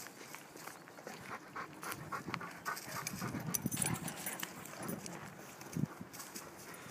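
A Newfoundland dog panting, loudest about halfway through, over footsteps on a gravel track.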